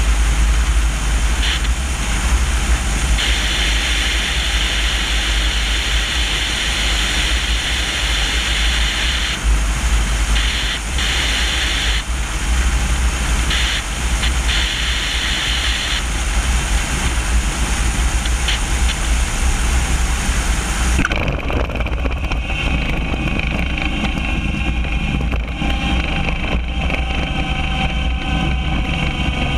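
Wind buffeting and rushing over a camera on a Cessna 150E's main landing gear leg, with the plane's engine droning underneath, on final approach. About two-thirds of the way through the hiss drops away abruptly and steadier engine and propeller tones come through as the plane rolls on the runway after touchdown.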